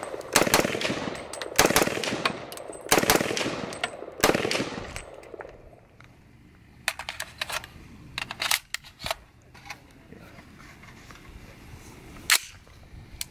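Rifle shots from a Q Sugar Weasel chambered in 300 Blackout, fired as double taps: four quick pairs in the first five seconds, each shot with a ringing echo. After that a few faint clicks and knocks, and one sharp crack near the end.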